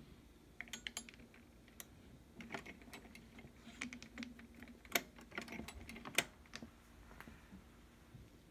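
Irregular light clicks and taps of hands and a metal tool handling a vintage sewing machine, with two sharper knocks about five and six seconds in.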